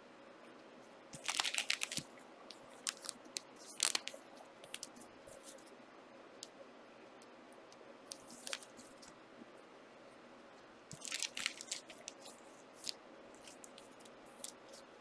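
Sports card packs and cards being handled and opened: short scattered rustles, a few seconds apart, with light clicks in between.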